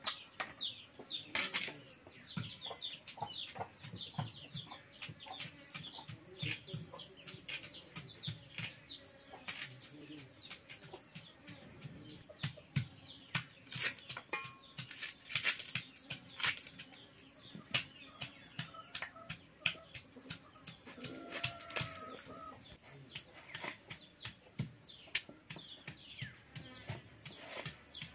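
Irregular sharp taps and clicks of a knife chopping shallots on a wooden block while vegetables are cut by hand, with small birds chirping.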